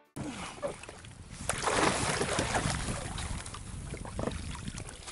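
Water splashing and sloshing around a Native Titan 10.5 Propel sit-on-top fishing kayak as a person in the water hauls himself up onto it over the side. There are irregular small knocks and splashes, loudest about two seconds in.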